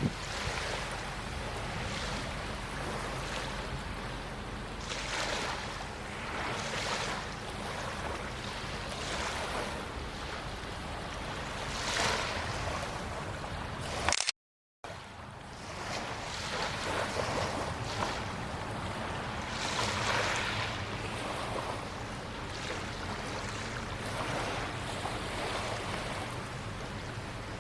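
Waves washing against the shore in repeated swells, with wind on the microphone and a low steady drone underneath. The sound drops out for a moment about halfway through, at an edit.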